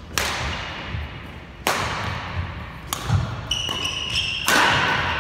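Badminton rally: a shuttlecock struck by rackets four times, about a second and a half apart, each sharp crack echoing in a large hall. Between the hits come footsteps and short shoe squeaks on the wooden court.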